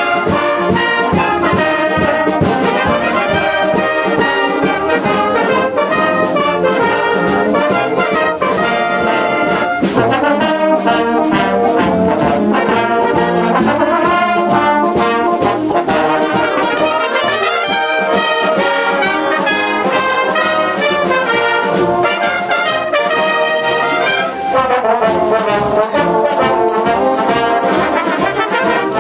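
Amateur brass ensemble playing a tune together, led by a section of trombones with trumpets. The music runs without a break, and the trombones slide up and down in pitch several times.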